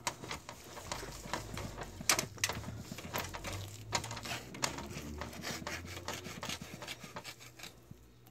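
Carving knife and fork clicking and scraping against a metal roasting rack and pan while turkey breast is sliced, in irregular sharp ticks.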